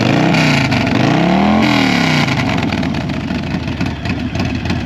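Motorcycle engine built with an aftermarket exhaust, a Woods cam and an S&S intake, blipped twice, pitch rising and falling each time, then settling back to a lumpy idle.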